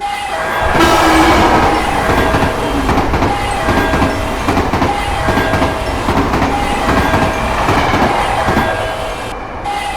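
Level-crossing warning bell ringing in a steady alternating two-tone pattern while a train passes, its wheels clattering rhythmically over the rail joints. The train noise swells about a second in and eases off near the end.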